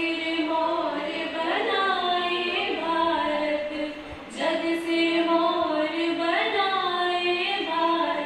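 Two young women singing a slow song together into a microphone with no instruments, holding long notes that glide between pitches, with a short breath pause about four seconds in.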